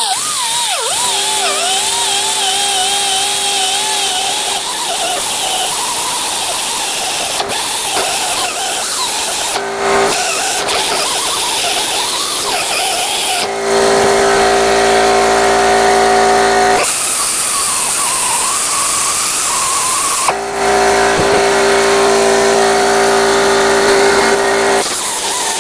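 Die grinder with a small sanding disc running continuously against a cast-iron bench vise, grinding down casting lines. Its pitch wavers as the disc bears on the metal, and it steadies into an even whine for a few seconds at a time in the second half, with brief dips near 10 and 20 seconds.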